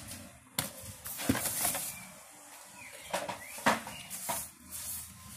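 Cardboard packaging being handled: a keyboard box's cardboard insert lifted out and the paper-wrapped keyboard pulled free, giving a series of short rustles, scrapes and light knocks.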